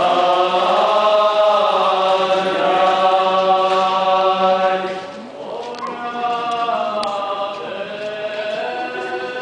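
Armenian liturgical chant sung by a choir of men's voices over a steady low held note. About five seconds in the singing dips, then goes on more softly.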